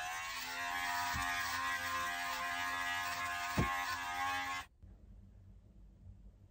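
Electric hair clipper with a comb guard buzzing steadily as it cuts short hair, with a knock about a second in and a sharper one past halfway. The buzz stops abruptly about two-thirds of the way through, leaving faint room tone.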